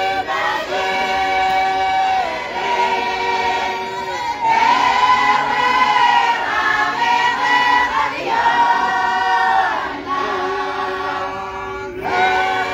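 A choir of women and men singing together in long held notes, with a softer passage near the end.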